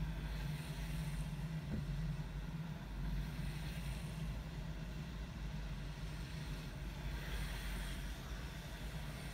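Idling car engine heard from inside the cabin, a steady low hum, with the hiss of passing cars' tyres on the wet road swelling about seven seconds in.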